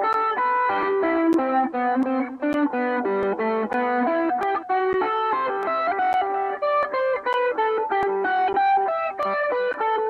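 Unaccompanied electric guitar playing a single-note lead lick, a steady run of picked notes a few per second with each pick attack clearly heard.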